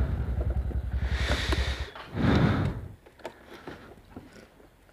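TVS Ntorq 125 scooter's single-cylinder engine running at low speed as the scooter rolls to a stop, with a brief louder noise about two seconds in; the engine sound stops about three seconds in, leaving only a few faint clicks.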